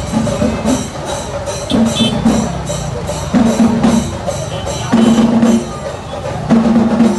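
Music with a steady percussion beat and short held notes repeating every second or so.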